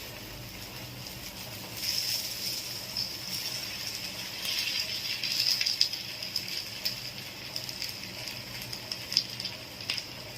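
Peanut-butter-coated chicken breast pieces sizzling and crackling as they fry in oil, a steady hiss with scattered pops that swells about two seconds in and again around the middle.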